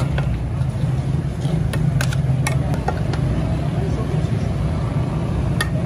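A metal ladle clinking a few times against steel plates and the aluminium rice pot as rice is served, over a steady low rumble.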